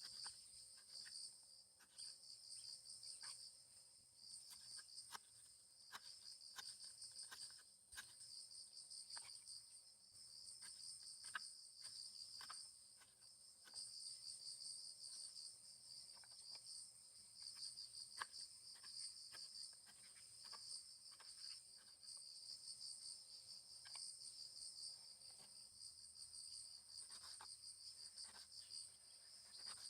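Insect chorus trilling steadily at a high pitch, with faint scattered clicks and taps.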